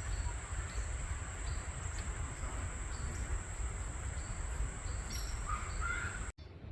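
Insects trilling on one steady high note over a low rumble, with a brief chirp near the end. Everything cuts off abruptly just before the end.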